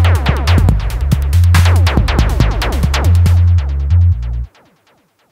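Electronic background music with a drum-machine beat and a heavy pulsing bass line, cutting off abruptly about four and a half seconds in, followed by near silence.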